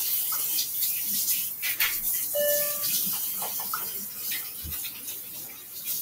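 Kitchen tap running while chocolate is rinsed off a hand, a steady hiss of water with small handling knocks, easing off near the end. A short, steady squeak-like tone sounds about two and a half seconds in.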